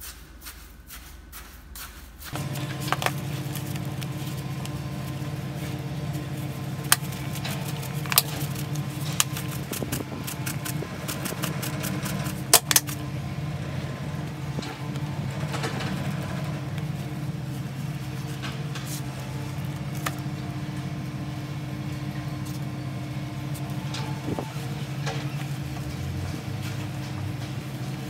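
A stick stirring and scraping damp soil in a plastic bucket with quick, repeated strokes. About two seconds in, a steady low mechanical hum starts abruptly, with occasional light clicks over it.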